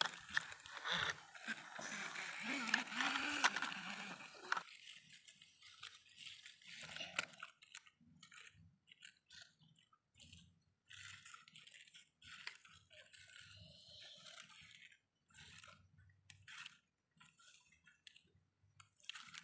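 Plastic toy road roller pushed by hand over wet, gritty mud and a wooden plank: faint, irregular crunching and scraping. A denser stretch of this noise cuts off abruptly about four and a half seconds in, leaving short scattered scrapes with gaps between them.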